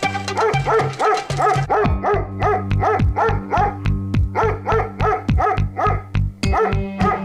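A dog barking rapidly and without pause, about three barks a second, over background music with steady low notes.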